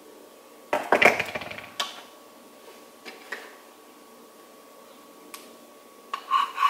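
Kitchen utensils being handled while baking powder is measured out with a spoon: a louder rattling clatter about a second in, then scattered light taps and clinks, with another cluster of clinks near the end.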